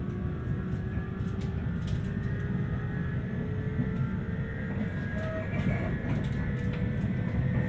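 Interior running noise of a 719-series AC electric multiple unit pulling away: a low rumble under a jet-like whine that rises slowly in pitch as the train gathers speed. The uploader suspects the whine is unusual for this car and calls it a 'jet car'.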